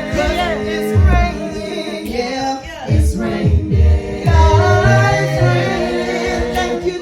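A cappella worship singing: a mixed group of women's and men's voices in harmony, with a deep sung bass line moving beneath them and no instruments.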